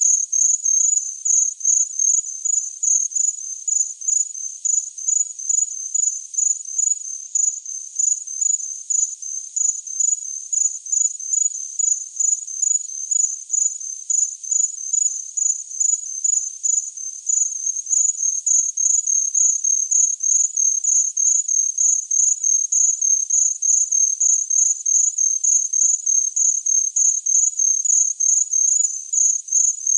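A cricket chirping: short, high chirps repeating evenly a few times a second, without a break.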